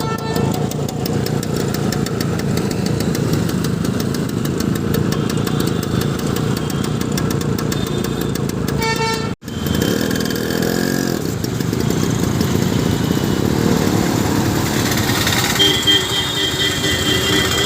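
Motorcycle or scooter engine running steadily, with a sudden cut to silence about halfway through before it carries on. Near the end a steady high tone sounds over it.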